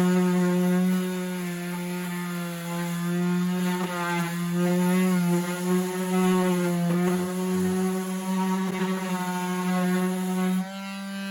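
DeWalt 20V XR brushless random orbital sander running and sanding wood, a steady motor hum that wavers slightly as it is worked over the surface. The sound drops noticeably in level near the end.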